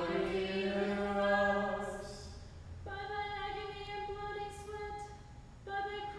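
Unaccompanied voices chanting a liturgy on long, steady notes, a female voice prominent. A new phrase begins about three seconds in and another near the end.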